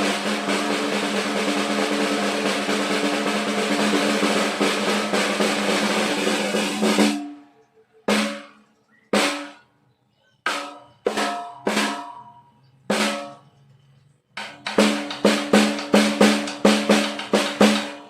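Mapex Pro M 13x3.5-inch snare drum: a sustained roll for about seven seconds, then a handful of single strokes spaced roughly a second apart, then a quick run of about a dozen accented hits near the end.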